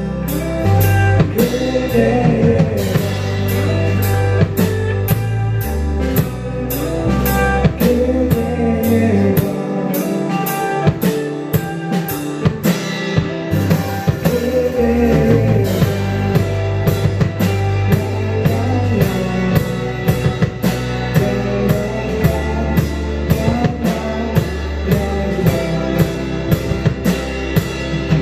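Live rock band playing: two electric guitars, electric bass and a drum kit keeping a steady beat. The low end drops out for a few seconds in the middle before the bass comes back in.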